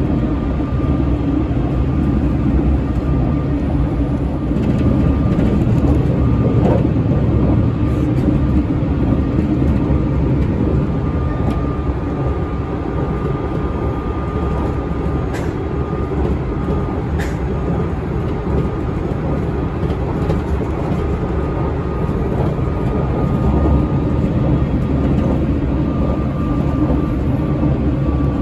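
Cabin running noise of a JR Shikoku 8000 series express car with Toyo Denki hybrid SiC VVVF traction equipment, cruising: a steady rumble of wheels on rail with a thin, steady motor whine over it. Two sharp clicks come a little past the middle.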